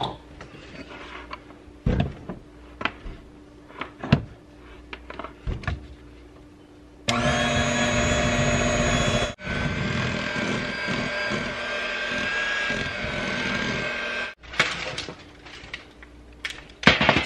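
Electric hand mixer beating flour into peanut-butter cookie dough in a glass bowl. It starts about seven seconds in, runs steadily for about seven seconds with a brief break and a slightly lower pitch after the first two, then stops. Before and after it there are scattered knocks and clinks of the bowl and mixer being handled.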